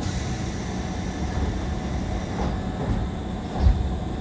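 JR 185 series electric train running, heard from inside the car: a steady low rumble of wheels on rail, with one louder thump about three and a half seconds in.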